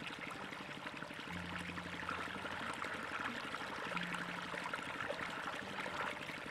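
Water gushing from the open end of a large irrigation pipe and splashing into a pool: a steady rushing and splashing.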